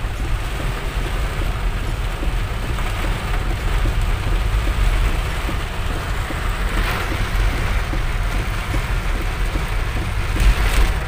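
Heavy rain drumming on a car's roof and windshield, heard inside the cabin over the low rumble of the car driving on a wet road. A louder swish comes about seven seconds in and again near the end.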